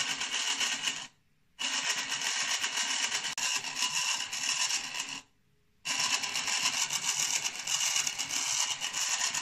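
Small DC toy motor whirring as it drives a laser-cut wooden gear train, the wooden teeth rattling as they mesh. The sound cuts off abruptly twice for about half a second and starts again.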